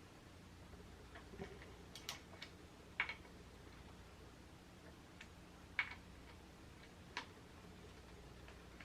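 A few faint, sharp clicks spread irregularly over a low steady hum, from a torque wrench being worked on the fork's lower clamp bolts.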